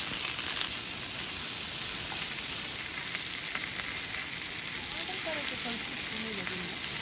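Meat sizzling as it cooks: a steady, crackling frying hiss.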